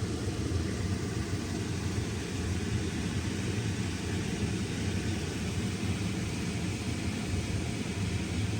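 Steady low rumble with a lighter hiss above it and no separate sounds standing out.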